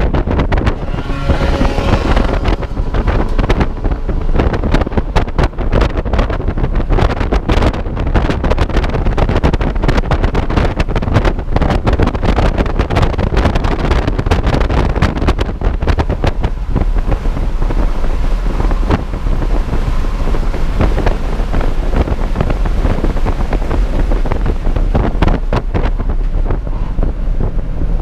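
Cabin sound of a Volkswagen MK5 GTI at speed: the turbocharged four-cylinder engine running under load, mixed with heavy wind and road noise on the microphone and many short clicks and knocks from the stripped interior.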